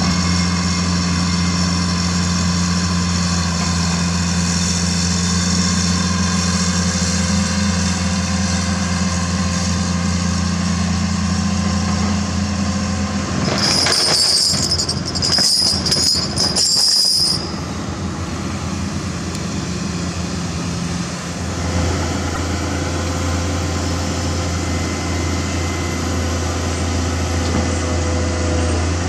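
Heavy diesel engine idling with a steady low hum. About halfway through, a few seconds of metal chains clanking with a high ringing tone.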